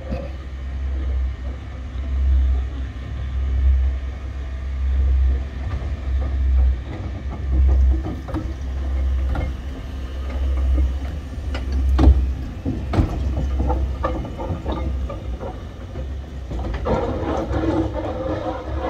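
1887 steam tram locomotive of the metre-gauge Chiemseebahn running slowly with its carriages. A low rumble swells and fades about every second and a half, with a few sharp clicks from the wheels on the rails about two thirds of the way in. The rattling of the running gear grows louder near the end as the locomotive passes close.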